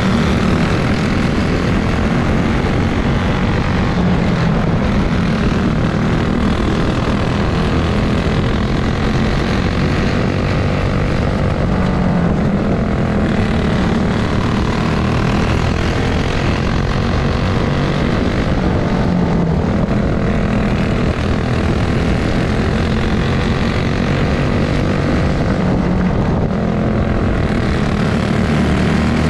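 Racing kart engines running hard on a dirt oval, heard from on board one kart: its own engine is close and loud, with other karts' engines alongside. The engine pitch rises and falls a little through the turns.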